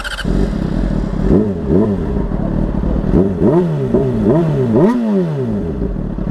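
Honda CBR600 sport bike's inline-four engine running and revved in about eight quick throttle blips, the pitch rising and falling with each one.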